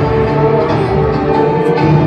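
A recorded song played loudly over stage loudspeakers, with sustained orchestral tones over a steady beat.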